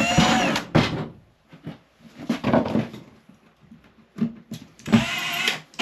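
Electric power tool motor whirring in short runs, its pitch rising as it spins up, with scattered knocks and clatter in between.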